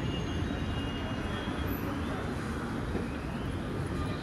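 Steady city street noise: a low traffic rumble with vehicles passing close by.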